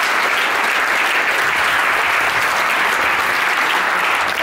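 A large seated audience applauding with steady, dense clapping, welcoming a speaker as he comes up.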